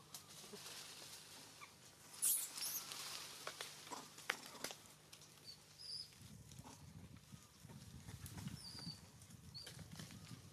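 Twigs and leaves crackling and rustling, with a few sharp snaps, as a young monkey clambers up a tree trunk through thin branches. The loudest crackle comes about two seconds in, and a few short high chirps sound later.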